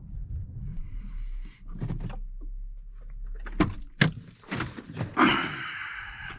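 A door being worked open and shut: a series of clunks and clicks, with a sharp knock about four seconds in and a longer scraping clunk just after five seconds, over a faint low hum.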